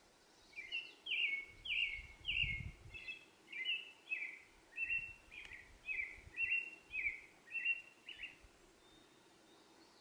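A songbird calling one short, down-slurred note over and over, about two a second, for some eight seconds, then stopping.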